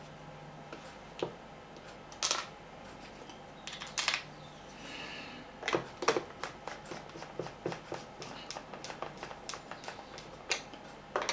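Irregular light clicks and taps of small screws and a plastic radio case being handled as the covers are refitted and the screws dropped into their holes, a few taps louder, with a quicker run of small ticks in the second half.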